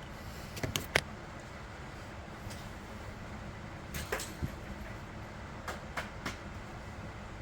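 Light clicks and knocks of hands and small parts handled on an opened chainsaw while it is cleaned out, two near the start, a cluster about four seconds in and several more about six seconds in, over a steady low hum.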